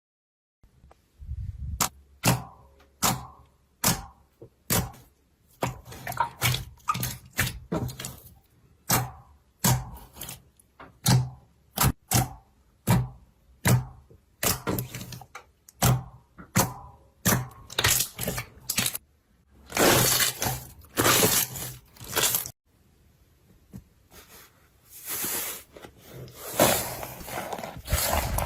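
Slime being handled, giving a quick run of sharp pops and clicks, two or three a second, then from about twenty seconds in longer, denser crackling squishes.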